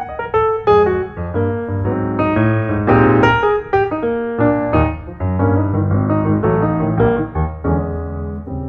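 Background piano music: notes struck in quick succession and fading, over low held bass notes.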